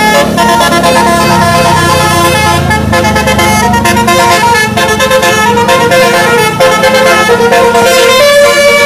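Sumber Jaya bus's telolet musical air horn playing a tune of quickly changing notes.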